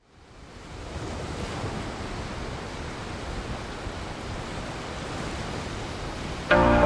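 Ocean surf washing in, a steady rushing noise that fades up over the first second. Near the end, louder music cuts in abruptly.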